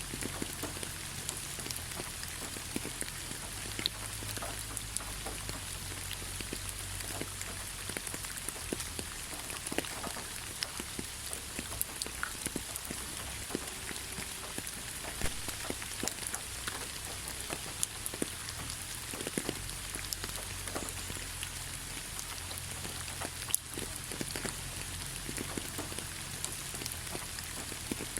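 Steady rain falling on hard surfaces: an even hiss with many individual drops ticking and splashing.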